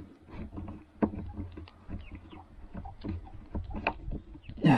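Screw being driven by hand into the wooden step of a chicken coop: irregular clicks, knocks and creaks of the screwdriver and wood, over a low rumble.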